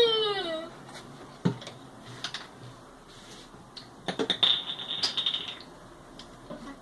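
Plastic bottles being handled, giving scattered sharp clicks and crackles, with a cluster of rapid clicks and a brief high squeak a little past the middle. A high, wavering squeal falls in pitch and fades away right at the start.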